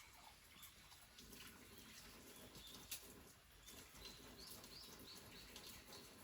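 Faint bird chirps over near silence, with a quick run of short high notes about four and a half seconds in and a single soft click near the middle.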